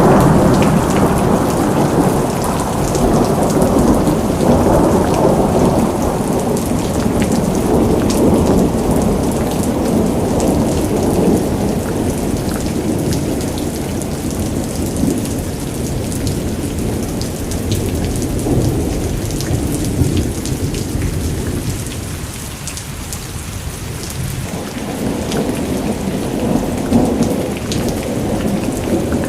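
Heavy rain pouring down, a dense steady hiss of falling water with a deep low rumble under it and fine drop patter on top; it eases a little about three-quarters of the way through, then picks up again.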